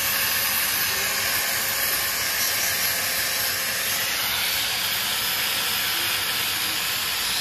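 Steady hissing from a compressed-air spray-paint gun spraying a cultivator frame, mixed with an electric angle grinder scrubbing rust off a cultivator tine.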